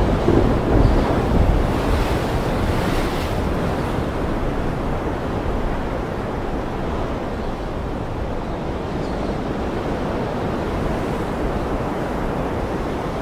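Ocean surf breaking and washing in a steady roar of water noise, with wind. A low rumble of thunder eases off over the first couple of seconds.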